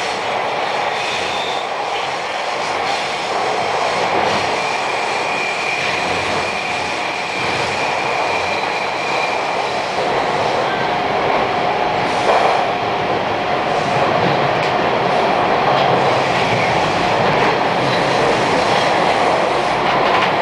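Bombardier T1 subway train running through a tunnel, heard from inside the car: a steady rumble of wheels on rail with a faint whine held over it.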